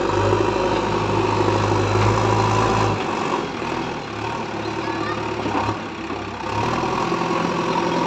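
JCB backhoe loader's diesel engine working as the front bucket scoops and lifts a load of broken bricks. The engine note is strong at first, drops about three seconds in, and picks up again near the end as the loaded bucket is raised.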